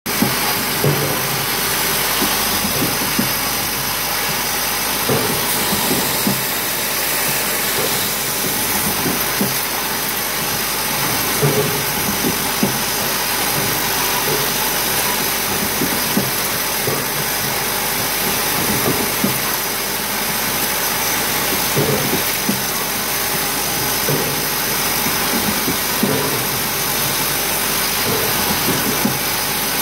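Ear lug automatic feeding spot welding machine running: a steady mechanical hum and hiss, broken by short sharp clanks about every one to two seconds as lugs are fed and spot-welded onto tin pail bodies.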